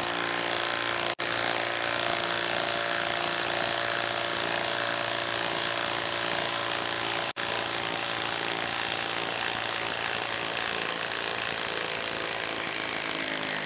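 Milwaukee M18 Stubby half-inch impact wrench hammering steadily in reverse, backing a long lag screw out of a wood log. Two split-second breaks interrupt it.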